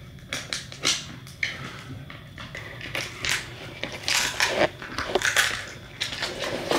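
A dog gnawing on a chew treat: irregular crunching and clicking bites, coming thicker and louder about halfway through.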